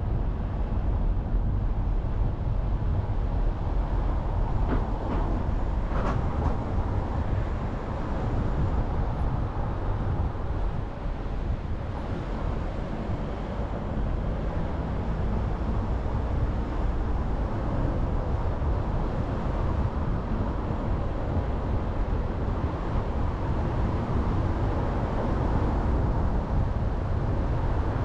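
A car driving along a road: steady low rumble of engine and tyres. Two faint ticks about five and six seconds in.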